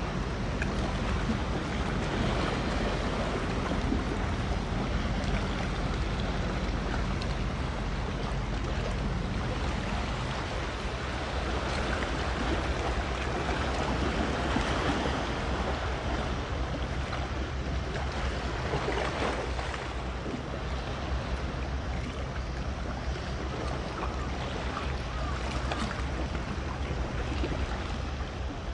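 Steady rush of wind and waves over the water, with a low, even drone underneath.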